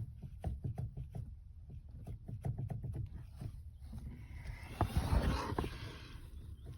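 Steering rack of a 2014 Kia Rio knocking in a quick, uneven series, about three to four knocks a second, a knock the owner puts down to the rack's spool valve. The knocking stops about three and a half seconds in, and a louder rushing noise follows near the end.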